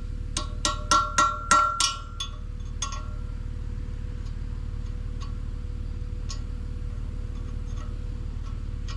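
Hammer blows ringing on steel, about seven quick strikes in the first three seconds, typical of driving a bearing race out of a tractor wheel hub with a drift. After that only faint light metal taps over a steady low hum.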